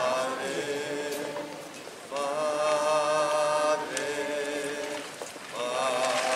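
Voices singing a slow hymn in long held notes, phrase after phrase with short breaks between them.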